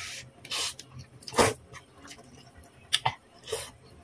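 A person slurping and chewing instant noodles and rice vermicelli: a short slurp at the start, then a run of brief wet sucks and mouth smacks, the loudest about a second and a half in.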